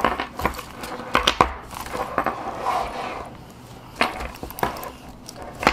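A laptop being pushed into the lined laptop compartment of a faux-leather backpack-purse: rustling of the bag, with several sharp clicks and knocks along the way.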